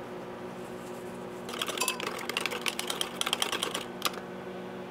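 A spoon stirring sauce in a small glass bowl, clicking quickly and steadily against the glass from about a second and a half in until near the end.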